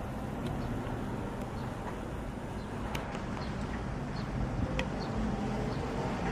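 Steady low outdoor background rumble, like distant traffic, with a few faint short clicks scattered through it.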